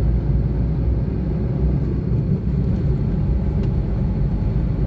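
Car driving along a highway: steady low rumble of engine and road noise.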